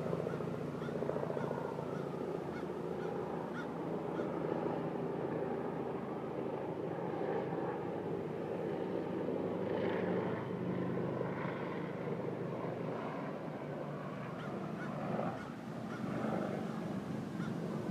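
A steady mechanical drone, like engines or machinery running, with a few faint, brief higher sounds about two-thirds of the way through.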